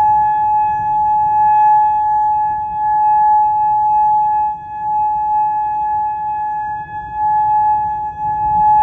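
Outdoor tornado warning siren sounding a steady, unwavering tone during its test, swelling and fading in loudness every couple of seconds.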